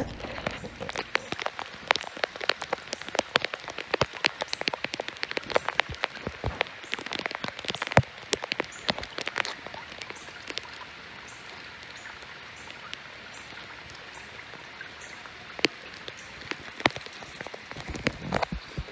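Footsteps through straw mulch and grass: a dense, irregular crackle of sharp ticks that thins out for a few seconds midway and picks up again near the end.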